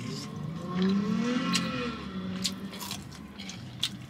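Someone eating fried chicken fingers: chewing and biting, with a few short sharp clicks. About a second in, a long hummed sound rises and falls in pitch.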